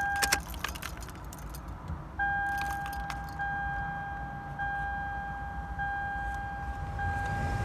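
Car keys jangling at the ignition of a 2005 Toyota Camry, then the dashboard warning chime sounding over and over, about once every 1.2 seconds.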